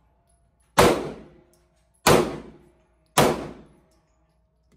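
Three pistol shots, a little over a second apart, each a sharp crack followed by a short echo off the concrete walls of an indoor range.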